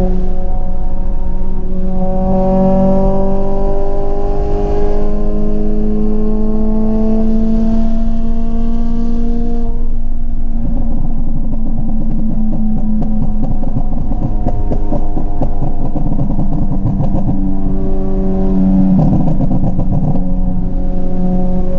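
Honda Civic EP3 Type R's 2.0-litre four-cylinder K20 i-VTEC engine revving hard in VTEC, its pitch rising steadily through a gear for about eight seconds. About halfway through the throttle comes off and the exhaust crackles and pops in a fast, dense run on the overrun, with more crackling near the end.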